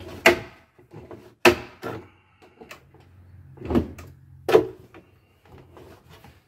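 About five sharp knocks and clunks from a boat's wooden helm console and rack-and-pinion steering helm being handled while the wheel is turned to draw a new steering cable into the helm gearbox. A faint low hum sits under the middle knocks.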